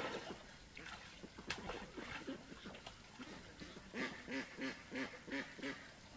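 Ducks quacking, ending in a quick run of about six quacks near the end.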